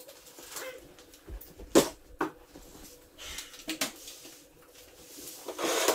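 Handling noises: scattered clicks and knocks on a plastic folding table, the sharpest about two seconds in, and a rustle near the end, as Lego pieces and papers are moved around.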